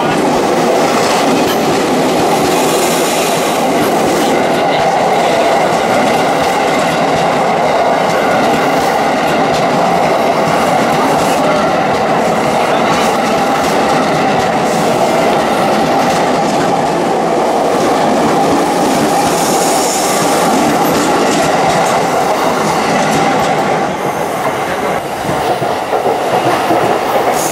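A JR East 211-series electric train runs past along the platform, its wheels clattering over the rail joints in a steady, loud rumble. The noise eases about four seconds before the end as the last car goes by.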